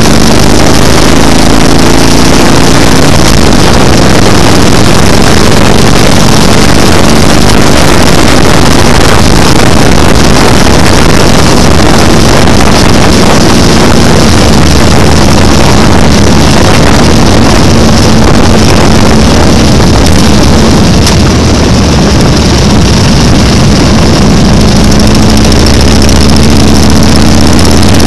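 Motorcycle engine running steadily at highway speed, mixed with loud wind noise rushing over the microphone.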